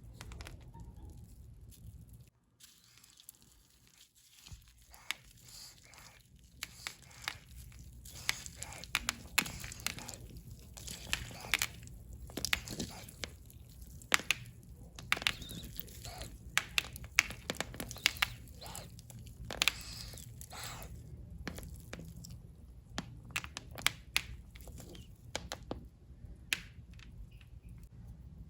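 Hands squeezing and pressing slime, making many irregular sharp sticky pops and clicks that come thickest in the middle.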